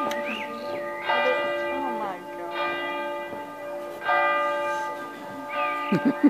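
Church bell tolling, struck about every one and a half seconds, each stroke humming on until the next.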